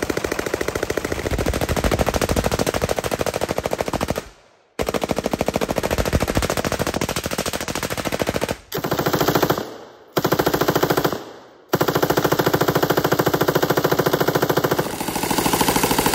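M249 SAW light machine guns firing 5.56 mm rounds in long, very rapid continuous bursts, with brief breaks about four, ten and eleven seconds in.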